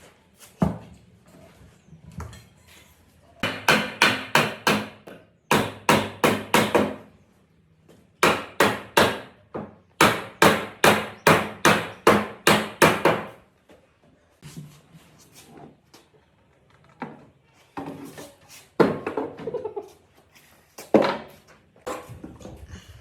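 Rapid hammer blows in four quick runs of about four or five strikes a second, followed by a few scattered single knocks near the end.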